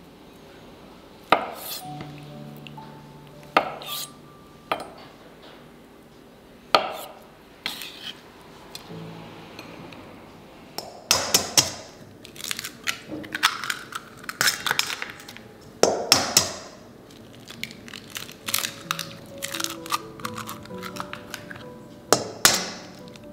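Eggs cracked one after another against a stainless steel mixing bowl and emptied into it: sharp cracks and metallic clinks, coming thick and fast in the second half, with a few single sharp taps earlier. Soft background music plays underneath.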